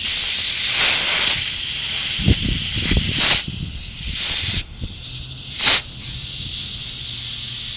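Compressed air hissing at a car tyre punctured by a nail while it is being filled with air, a steady hiss with several louder bursts. The tyre is still leaking air.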